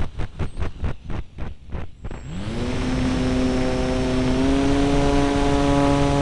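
An RC model airplane's motor and propeller heard close up from on board. For about two seconds there is a fast pulsing that slows and fades, then the throttle opens and the pitch rises quickly into a steady hum, stepping up a little about four and a half seconds in.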